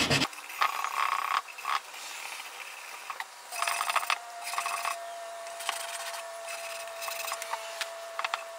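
220-grit sandpaper scratching in short, irregular strokes against the rusty metal inside a motorcycle gas tank's filler opening, scuffing the rust off around the cap.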